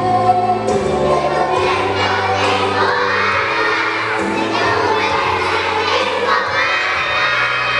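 A group of young children singing and shouting together over music with a steady bass line.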